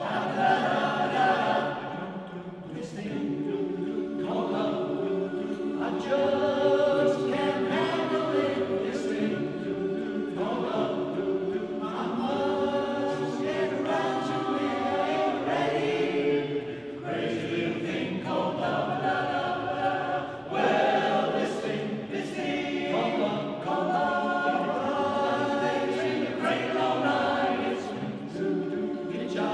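A men's barbershop chorus singing unaccompanied in close four-part harmony inside a cathedral, the song starting abruptly at the very beginning.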